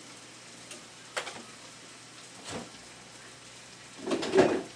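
Minced beef mixture sizzling faintly in the pan, the heat just turned off, with a few short utensil knocks and a louder brief noise near the end.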